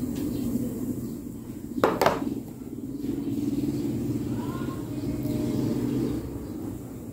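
A low, steady mechanical hum, with two short sharp clicks just under two seconds in.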